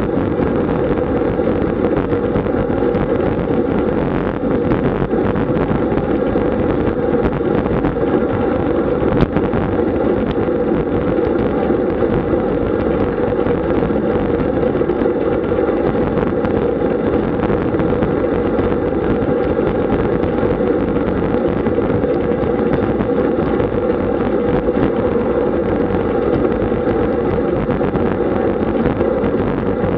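Steady wind rush on the microphone with tyre and road noise from a road bike riding at about 32 km/h.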